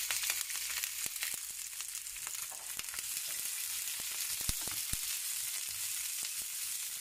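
Chopped red and green bell peppers (capsicum) sizzling as they fry in a pan, with scattered light clicks over the steady hiss.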